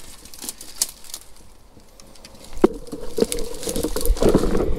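Footsteps tramping over rough ground, a few scattered crunches at first, then dense, steady crunching underfoot from about two and a half seconds in.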